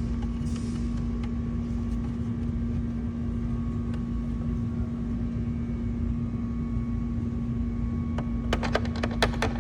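Steady low machine hum with one constant tone throughout. About eight and a half seconds in comes a quick run of small clicks and taps, typical of hand-fitting plastic camera housing parts together.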